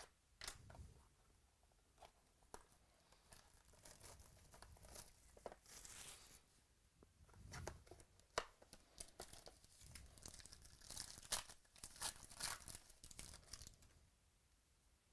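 Faint tearing and crinkling of a trading-card pack wrapper being opened, with scattered clicks and rustles of cards and packaging being handled, busiest near the end.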